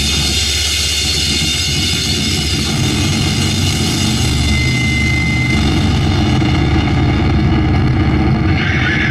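Sludge/noise recording: a dense, steady wall of distorted noise over a heavy low rumble, with no clear beat. A thin high whistle sounds briefly about halfway, and wavering higher sounds come in near the end.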